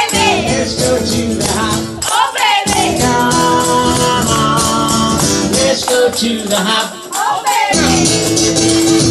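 Live acoustic guitar and singing of a rock-and-roll sing-along, with several hand-held tambourines shaking and jingling along.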